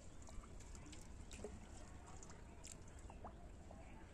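Faint river water sloshing and dripping as arms move underwater, over a low steady rumble, with a few soft ticks and a couple of brief faint chirps.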